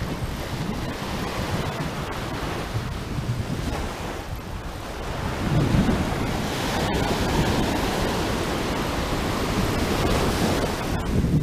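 Surf washing up the beach in foamy waves, with wind buffeting the microphone. A wave surges in about halfway through, and the wash stays louder until near the end.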